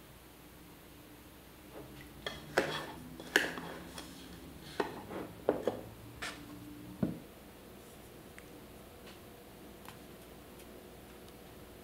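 About ten sharp clinks and knocks over a few seconds, some ringing briefly, then only faint light ticks: a wooden spoon scooping ground espresso from a metal coffee tin, knocking against the tin and a metal portafilter.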